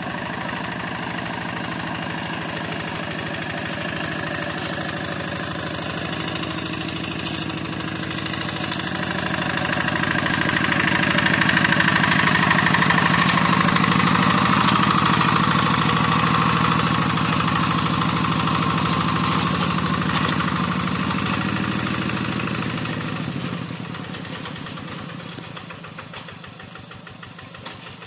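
Two-wheel hand tractor's single-cylinder diesel engine running steadily while pulling a moldboard plough. It grows louder through the middle and fades over the last few seconds.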